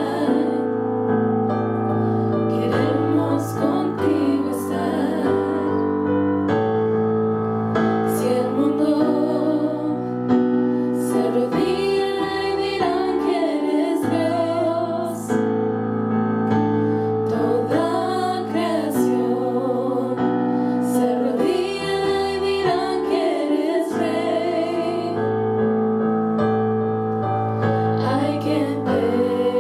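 Three women singing a worship song together into microphones, amplified, over a piano or keyboard accompaniment.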